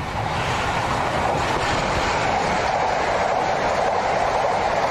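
Passenger train passing at speed on the track close by: a steady rush of wheel and rail noise that swells over the first second or so and then holds.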